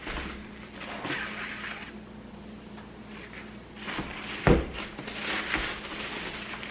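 Wrapping and packaging rustling as the last item in a box is unwrapped, with one sharp knock about four and a half seconds in.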